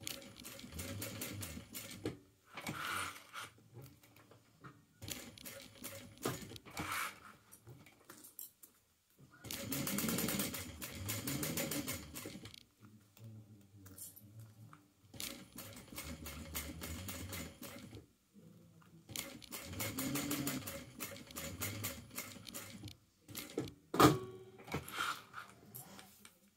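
Sewing machine stitching in short runs of rapid needle strokes, stopping and starting every few seconds while the edge is sewn. A single sharp click comes near the end.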